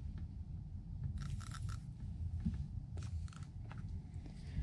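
Aerosol can of penetrating oil sprayed through its straw onto rusty bolts. It gives several short hisses about a second in, then a couple more about three seconds in, over a steady low rumble.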